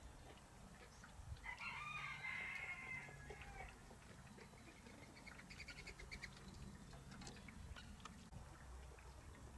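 A rooster crowing once, a single call of about two seconds starting about a second and a half in. Afterwards only a few faint short clicks and chirps from the foraging flock.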